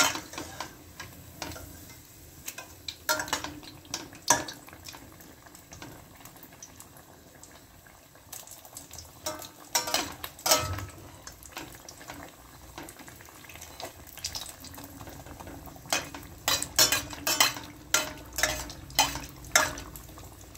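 Batter-coated bread pakora deep-frying in hot oil in a steel pot with a steady sizzle. A perforated steel skimmer scrapes and clinks against the pot as the pakora is turned, in clusters of sharp knocks, busiest in the last few seconds.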